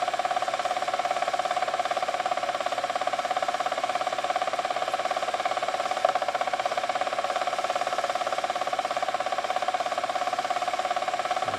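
Homemade pulse motor running at about 1,000 RPM, its pulsed coil and spinning magnet rotor making a steady buzzing whine with a fast, even pulsing rhythm. One brief click about six seconds in.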